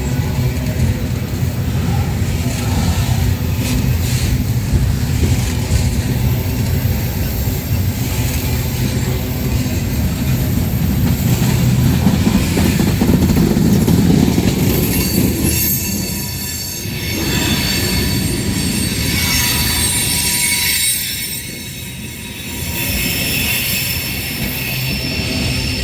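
CSX freight train rolling past, its wheels rumbling and clacking over the rails. In the second half, high-pitched steel wheel squeal rises over the rumble.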